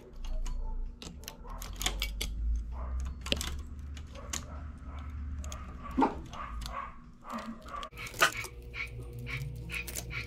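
Light clicks and taps of a hand transfer tool against the metal needles of a domestic knitting machine as stitches are lifted and moved. In the last couple of seconds, short animal calls that rise and fall in pitch come in behind it.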